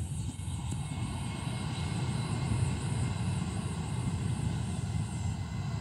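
Airplane engines running close by: a steady deep rumble with a faint high whine, swelling up right at the start and then holding.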